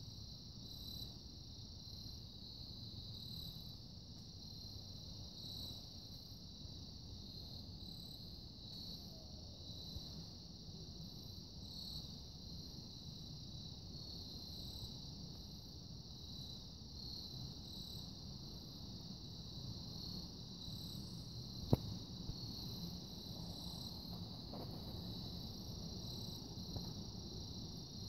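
Faint, steady chorus of crickets chirping, with fainter repeating higher notes above it. A single sharp click about three-quarters of the way through.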